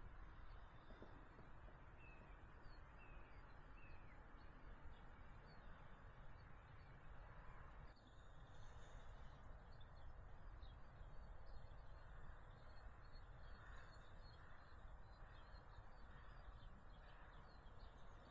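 Near silence: faint birds chirping in the distance over a low, even background hiss.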